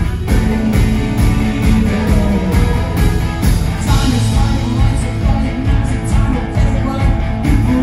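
Live rock band playing at full volume: electric guitar, bass guitar and drums with a steady beat.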